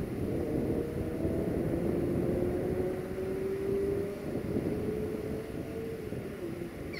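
Low rumble and hum from a standing Electroputere 060-EA (LE5100) electric locomotive, with a steady tone that rises slowly in pitch and fades out near the end.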